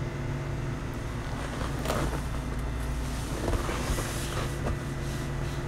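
Small clicks and rustles as pliers and small plastic Mini 4WD chassis parts are handled during assembly, about two seconds in and again between about three and a half and five seconds in, over a steady low room hum.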